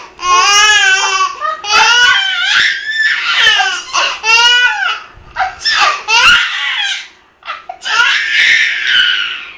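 A baby's high-pitched vocalizing: a string of loud, drawn-out, wavering squeals, each about half a second to a second long with short breaks between them, and a breathy noisy burst about eight seconds in.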